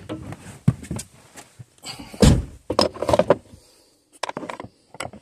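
Car door of a 2014 Audi RS5 shutting with a heavy thunk about two seconds in, among knocks, clicks and rustling from someone getting into the driver's seat.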